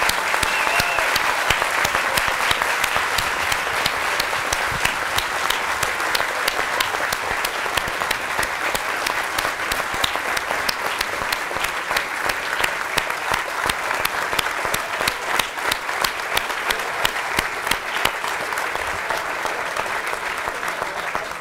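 Large audience applauding, a long sustained round of clapping that eases off slightly near the end.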